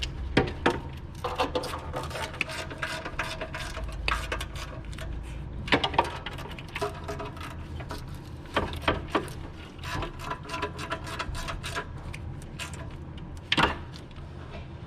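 Hand tools and fittings being worked on a car's cover: a steady run of small clicks, scrapes and rattles, with a few sharper knocks and short squeaks.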